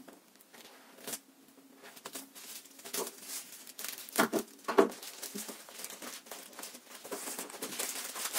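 A mechanical keyboard's cardboard box and packaging being opened and handled: scraping, rustling and crinkling, with two louder knocks about four and five seconds in.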